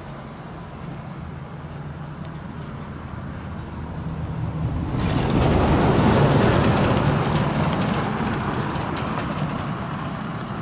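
Traffic on an unpaved road: a steady low engine hum, then about halfway through a sudden, louder rush of tyre and road noise that swells for a second and slowly fades, like a vehicle passing close by.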